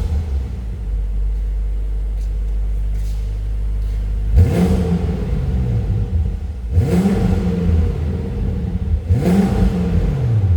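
BMW M5's twin-turbo V8 through a de-catted turbo-back exhaust firing up with a brief loud flare, settling to a steady idle, then revved three times, each rev rising and falling, about two and a half seconds apart.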